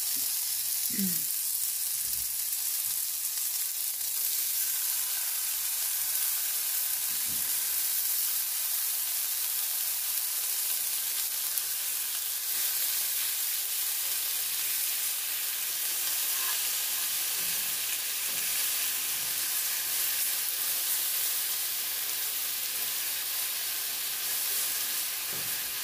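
Lemon slices sizzling in caramelized brown sugar in a nonstick frying pan, a steady high hiss, with a spoon now and then nudging and turning the slices.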